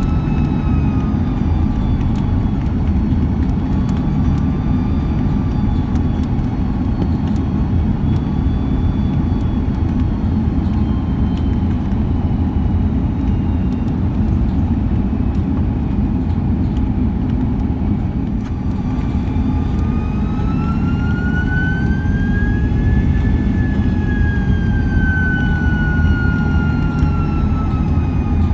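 Airbus A330 jet engines heard inside the cabin over a steady low rumble of cabin and airflow noise, their whine falling early on, then spooling up about two-thirds of the way through and easing back down: thrust changes on approach.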